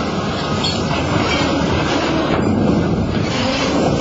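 Steady rumbling noise of a heavy excavator working on a ship's steel hull, mixed with wind buffeting the microphone.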